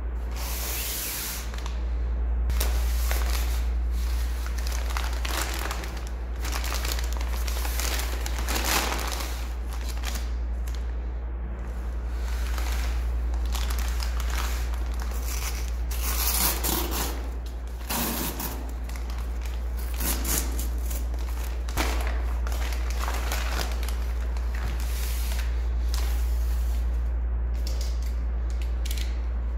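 A brown paper mailer envelope being handled and torn open along its tear strip: irregular paper rustling, crinkling and crackling, loudest in bursts around the middle. A steady low hum runs underneath.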